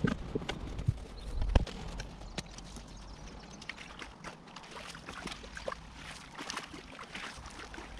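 Water trickling down a leaf-filled concrete irrigation ditch, with many small ticks and crackles as it runs over and through the dead leaves. A single knock about a second and a half in is the loudest sound, with wind rumbling on the microphone in the first couple of seconds.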